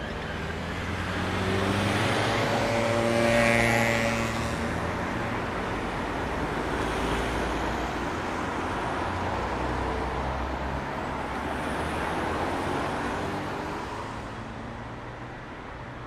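Road traffic at a city junction: cars and other motor vehicles driving past with engine hum and tyre noise. One vehicle passes close and loudest about three and a half seconds in, another swells by around twelve seconds, and the traffic eases off near the end.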